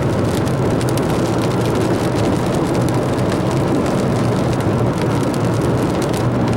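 Steady road and engine noise of a car being driven, with rain ticking on the car.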